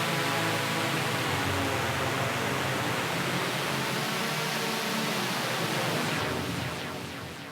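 Roland Boutique JX-08 synthesizer playing a hissing, noise-heavy patch over a few held low notes, fading away near the end.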